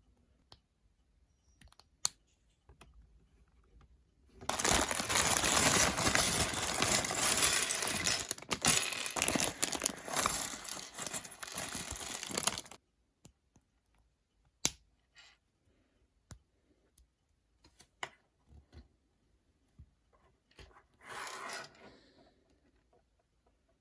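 Plastic parts bag of a Lego set being crinkled and torn open, a dense rustling that lasts about eight seconds, with a shorter rustle near the end. Scattered small clicks of pieces come before and between.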